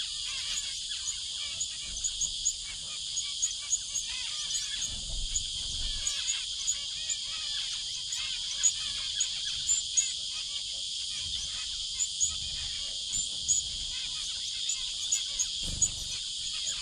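A steady, high insect drone under many short, sharp chirps and soft calls from a flock of feeding finches.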